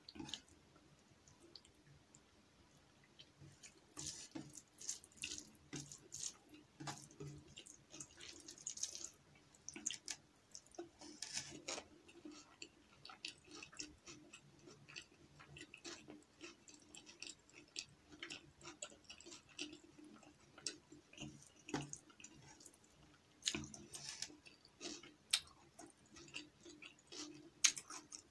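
Close-miked wet chewing and mouth clicks of someone eating rice and lentil dal by hand, with soft squishes of fingers gathering rice on the plate. The clicks come thickest about four seconds in and again near the end.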